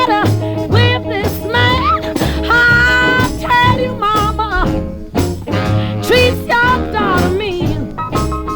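Rhythm and blues record playing from vinyl: a melody line sliding between notes over a steady bass and drum beat.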